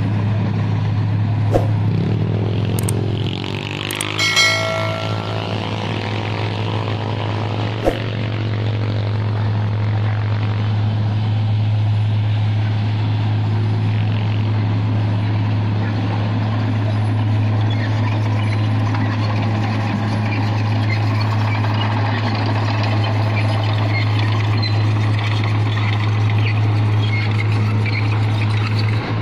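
Isuzu Elf dump truck's diesel engine running steadily as the loaded truck manoeuvres and then works its tipper bed. A brief whistling hiss comes about four seconds in, and there are a couple of sharp knocks.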